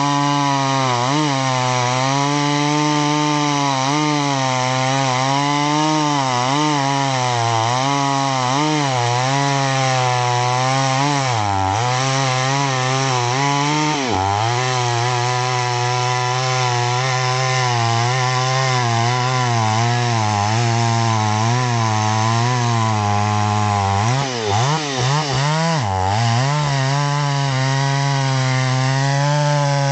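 Solo by AL-KO 652 petrol chainsaw running under load as it cuts through a thick log, its engine note wavering as the chain bites. The engine speed dips briefly a few times as the saw bogs in the cut, most often a few seconds before the end.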